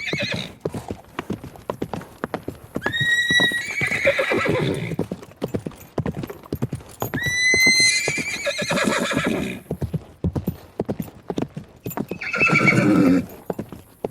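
Horse whinnying: a call about three seconds in and another about seven seconds in, each starting on a high held note and breaking into a falling neigh, then a rougher, lower call near the end. Clip-clop of hooves runs under the calls.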